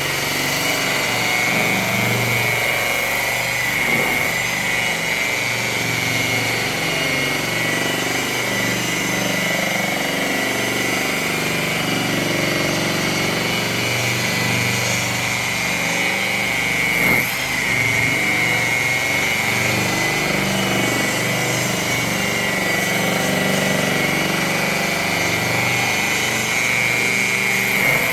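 Power buffer motor running steadily with a high whine while polishing painted sheet metal, with one brief catch in its sound partway through.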